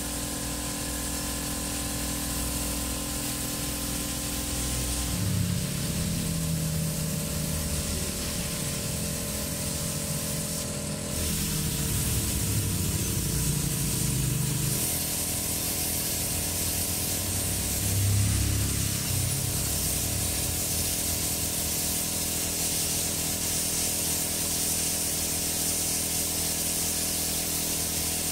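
Aerosol spray paint can hissing as engine parts are sprayed, over background music.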